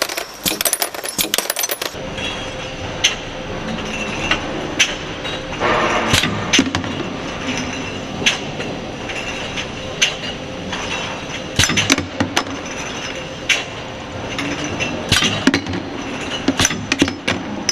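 Aerosol can conveyor line running with a steady mechanical hum. Aluminium cans clink and knock against each other and the guide rails in sharp, irregular clicks, with a brief busier rattle about six seconds in.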